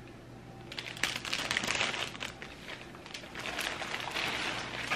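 Clear plastic flower sleeve crinkling as a bouquet is handled, in two spells of rustling: the first begins about a second in, the second near the end.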